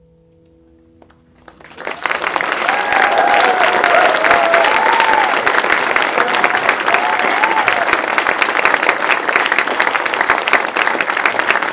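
The last held notes of the music fade out. About two seconds in, an audience bursts into loud applause, with high whoops and cheers over the clapping for the next few seconds.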